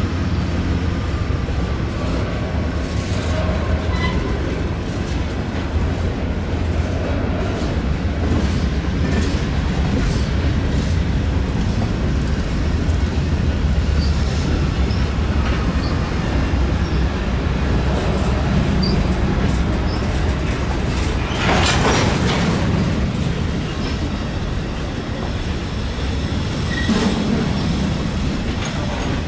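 A train rolling past, its wheels clicking over rail joints above a steady low rumble, with a louder rush of noise a little after the middle.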